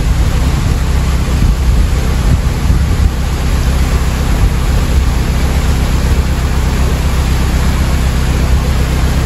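Water pouring through the lock gates into a canal lock chamber: a steady, loud rushing and rumble, with a narrowboat's engine running underneath as a low even drone.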